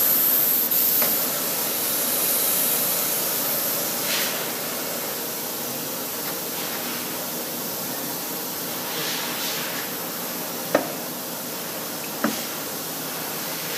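Poreba heavy-duty lathe running with a steady hissing machine noise, a little louder for the first few seconds. Two sharp clicks sound near the end, about a second and a half apart.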